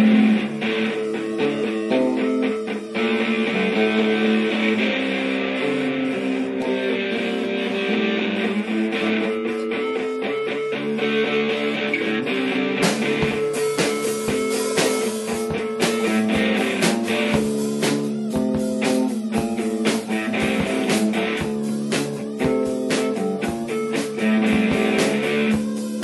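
Guitar music: plucked notes over a steady low note held underneath.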